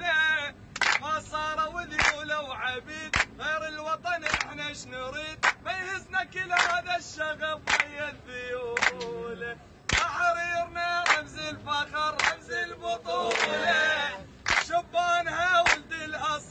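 A group of men singing a chant together, with hand claps struck in time about once a second.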